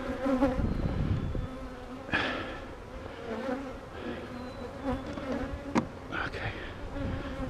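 Honeybees buzzing in a steady hum, many of them at once, with a single light click about six seconds in.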